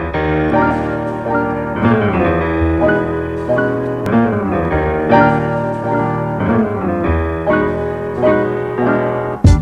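Piano music: slow struck chords over a steady deep bass, with a sharp percussive hit near the end as a beat comes in.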